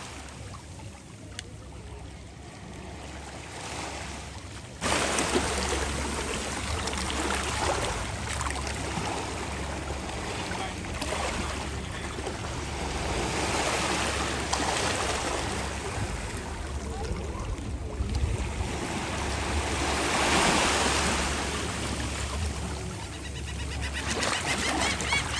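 Small sea waves washing onto the beach, the surf swelling and easing every few seconds. It gets suddenly louder about five seconds in.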